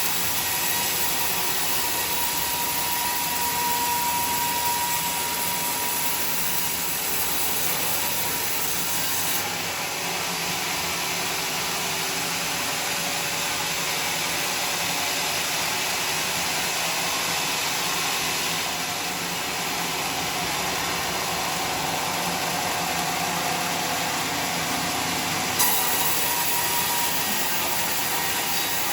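Sawmill saw cutting a log of bayur wood: a steady machine noise whose tone changes about nine seconds in and shifts back with a short click near the end.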